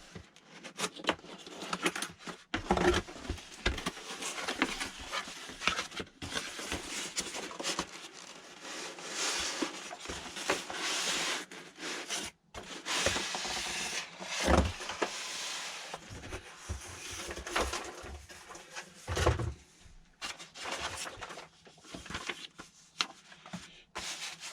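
Box being opened and its contents handled: irregular rubbing, scraping and rustling of packaging, with a few dull knocks.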